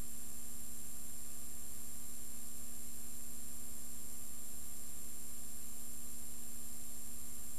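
Steady electrical hum with a faint high whine and even hiss, and nothing else: the background noise of a silent film's soundtrack transfer.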